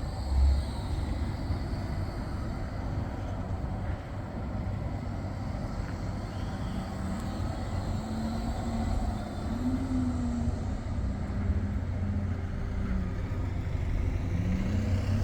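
Road vehicle running on a town street: a steady low rumble, with a wavering engine or motor tone in the second half. The sound cuts off abruptly at the end.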